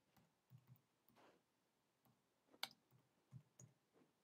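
Near silence with a few faint, scattered clicks of a computer's mouse and keyboard as commands are entered in a terminal; the sharpest click comes about two and a half seconds in.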